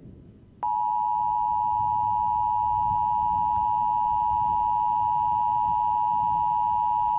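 Emergency Alert System attention signal: a loud, steady, unwavering tone near 1 kHz that starts abruptly under a second in, over a faint low rumble. It announces the emergency warning message about to be read.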